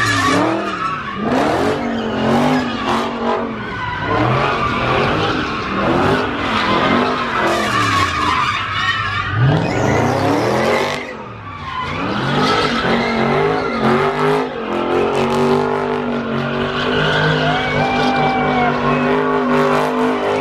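Dodge Charger doing donuts: the engine revs up and down again and again, then holds steady revs near the end, while the rear tyres squeal and skid in a smoky burnout.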